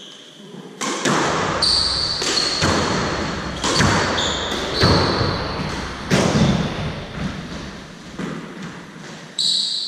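Squash rally: the rubber squash ball is struck by racquets and smacks off the court walls in a series of about eight sharp knocks, each ringing briefly in the enclosed court, with short high squeaks of sneakers on the wooden floor between shots.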